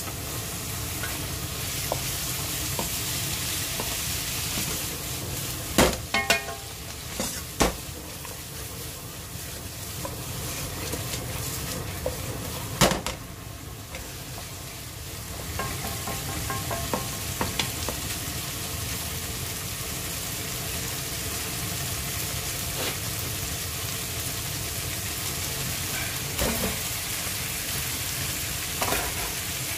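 Chicken pieces sizzling and frying in a nonstick wok as they are stirred with a wooden spatula, a steady frying hiss throughout. Several short knocks of the spatula or food against the pan come about six to eight seconds in, one about thirteen seconds in, and a couple more near the end.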